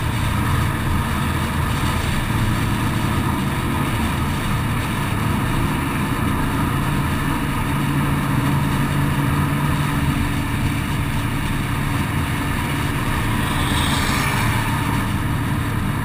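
Car at highway cruising speed: a steady low engine drone under wind and tyre noise.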